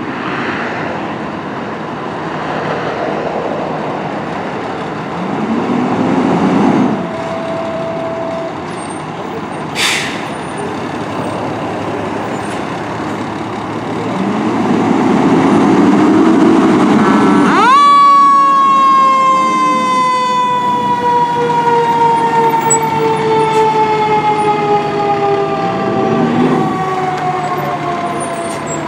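Fire engine's diesel running and revving as it pulls out, with a short hiss about ten seconds in. About eighteen seconds in, its Federal Q mechanical siren spins up sharply to a high wail, then coasts slowly down in pitch.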